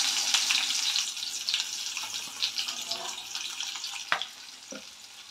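Sliced onions sizzling and crackling in hot oil in a kadai, just after being added. The hiss is loud at first and dies away steadily as the oil cools around the onions.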